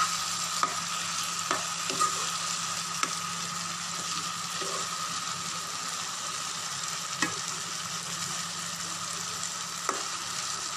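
Okra, onion and tomato sizzling in a kadai while a spoon stirs them, with sharp taps of the spoon against the pan, several in the first three seconds and two more later.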